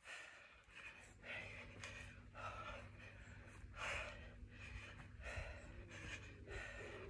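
A woman breathing hard in short, quick puffs, about one and a half a second, from the exertion of repeated skater jumps.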